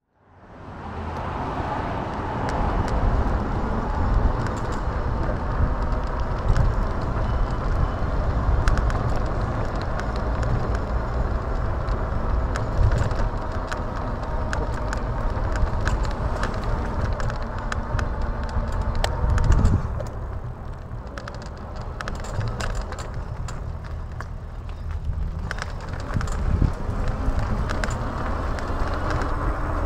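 Wind rushing over an action camera's microphone and tyre rumble from an e-bike being ridden along tarmac, with scattered small clicks and rattles. It gets quieter for a few seconds around two-thirds of the way through, then picks up again.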